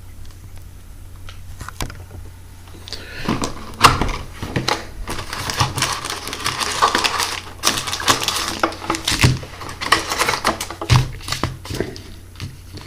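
A cardboard trading-card box being opened by hand and its card packs pulled out: a run of rustling, tearing and clicking that starts about three seconds in and dies down near the end.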